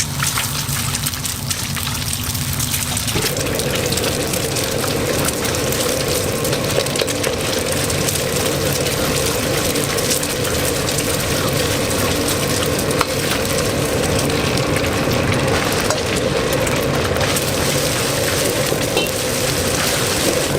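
Steady sizzling and hissing of frying on a stove, with a low steady hum joining about three seconds in.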